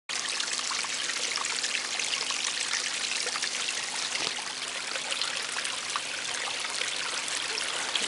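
Small garden-pond waterfall: water trickling steadily over slate stones into the pond, with many small splashes.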